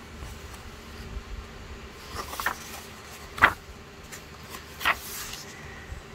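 Paper pages of a coloring book being handled and turned: a rustle about two seconds in, then two sharp page flaps, the louder one about halfway through and the other about a second and a half later.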